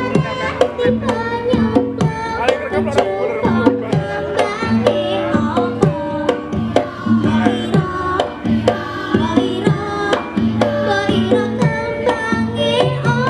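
Javanese gamelan (karawitan) ensemble playing: struck bronze metallophones and gongs ringing over quick hand-drum strokes, in a busy, even rhythm.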